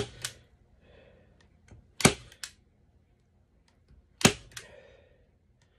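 A hand staple gun snaps three times, about two seconds apart, driving staples through the edge of a beaver pelt into a plywood board. The first two shots are each followed by a lighter click.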